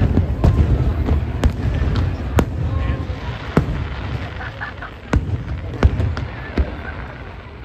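Aerial firework shells bursting overhead: sharp bangs about once a second over a low rumble, growing sparser and quieter in the last couple of seconds.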